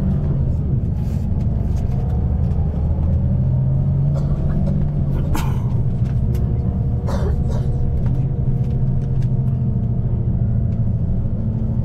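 Bus running on the road: a steady low engine and road rumble with a faint whine that drifts slowly in pitch, and two brief clatters a little past five and seven seconds in.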